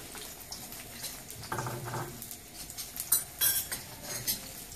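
Sliced onion and garlic frying in hot oil in a pan, a faint steady sizzle, with scattered metallic clinks of a utensil against the pan, the loudest about three seconds in.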